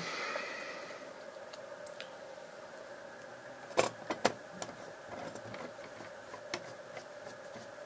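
Small metal clicks and ticks from a screwdriver and screws being fitted back into a radio transceiver's circuit board. There are two sharper clicks about four seconds in and a few lighter ticks after them, over a faint steady background hum.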